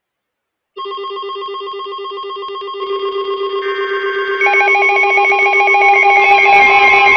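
Electronic beeping tones, several pitches pulsing together, starting abruptly about a second in. More layers join in steps and the sound grows louder.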